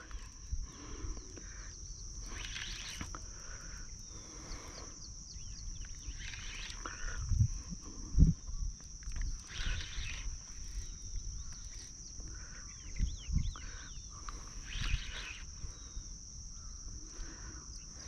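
Steady high-pitched insect drone, with short rustling bursts and a few low knocks every few seconds from handling a spinning rod and reel while playing a hooked fish.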